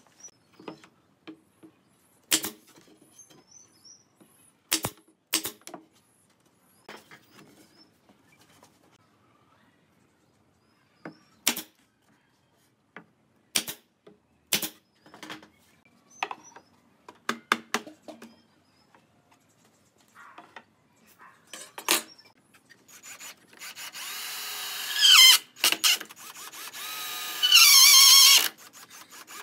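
Scattered sharp knocks and clicks as pine boards of a wooden frame are handled and set in place, then a Hitachi cordless drill runs twice near the end, boring holes into a pine board, its whine climbing and wavering in pitch.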